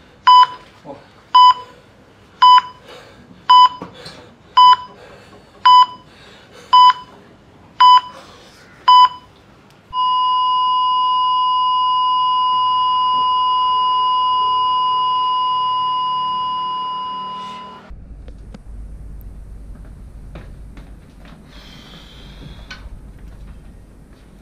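Patient heart monitor beeping about once a second, nine beeps in all. Then it switches to one continuous flatline tone that holds for about eight seconds and fades: the patient's heart has stopped. A quieter low hum follows.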